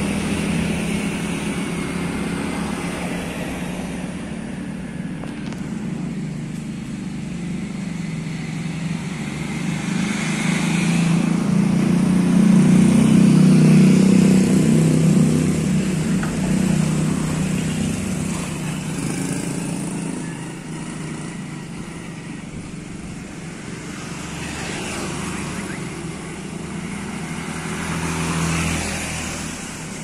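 Roadside traffic over the steady hum of an idling diesel engine from a bus waiting at its stop. The hum is at its loudest around the middle, and motorcycles pass near the end.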